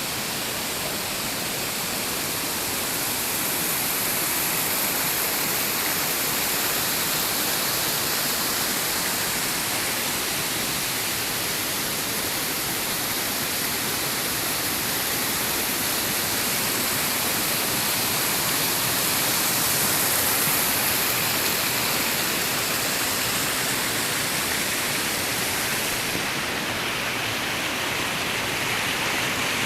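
Flowing water rushing steadily, like a forest stream or small waterfall. The tone changes a few seconds before the end, with less hiss at the top and more in the middle range.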